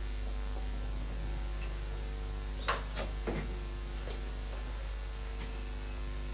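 Steady low electrical hum with a few short, faint sounds about three seconds in.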